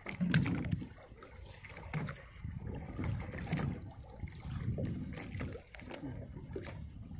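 Sea water sloshing and splashing against the hull of a small open boat, in uneven surges.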